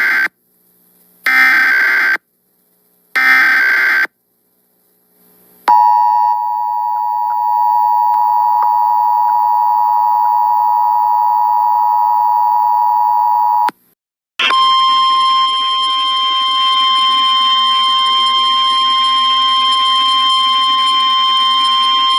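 Emergency Alert System broadcast tones: the end of the first and then two more short bursts of the digital SAME header, a rapid warbling data squawk. These are followed by the steady two-tone EAS attention signal for about eight seconds, then, after a brief break, a second steady single alert tone with a hiss behind it.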